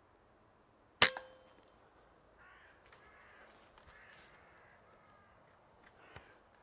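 A single shot from a .22 Logun air rifle about a second in: a sharp crack with a brief ring. Crows then caw repeatedly, and a lighter click comes near the end.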